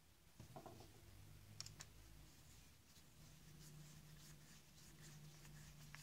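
Faint small clicks and scrapes of a screwdriver turning a screw into the plastic centre piece of a coffee grinder's burr assembly, most of them in the first two seconds. A faint steady low hum comes in about halfway.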